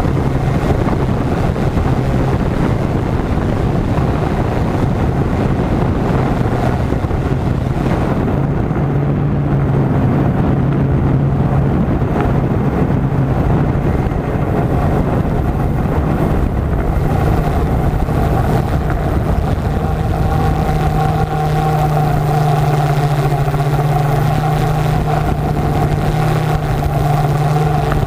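Yuneec Typhoon G drone's electric motors and propellers humming steadily, heard close up from the camera it carries. The hum's pitch shifts now and then with the throttle, settling a little higher and steadier in the last third.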